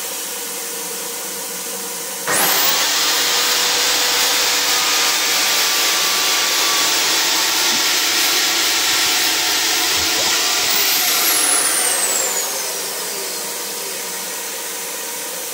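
Festool AT65 track saw starting with a quick rising whine a couple of seconds in, then running steadily through a cut in wood for about nine seconds before being switched off and winding down with a falling whine. This is a test cut with the blade set to a toe-in of 1/10 mm to stop burn marks. A steady hiss runs underneath throughout.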